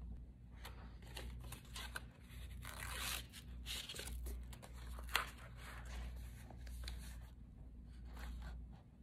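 Paper backing being peeled off strips of double-sided tape: faint, irregular tearing and crinkling rustles, with one sharp click about five seconds in.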